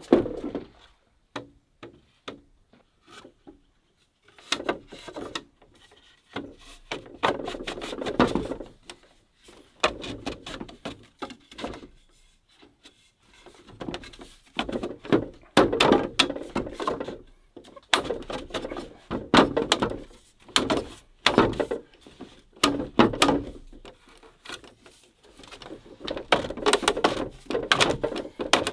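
Green bamboo rungs being worked into holes cut in bamboo uprights: repeated hollow knocks and bamboo scraping and rubbing on bamboo, coming in clusters with short pauses.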